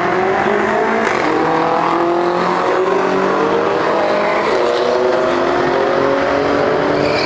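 Two Ford Mustang V8s, one a 2013 Shelby GT500, revving hard side by side at a drag-strip start line, then launching with wheelspin. The engine pitch climbs steadily and dips once partway through.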